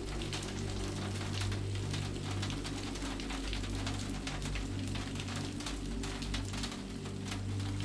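Steady rain falling, many separate drops ticking, over steady low tones of soft ambient music.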